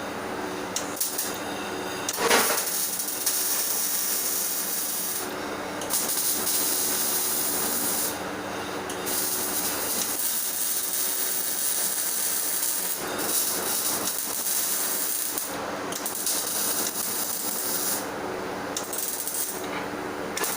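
MIG welding arc crackling and hissing in several short runs of a few seconds each, with brief pauses between beads, over the steady hum of the welder.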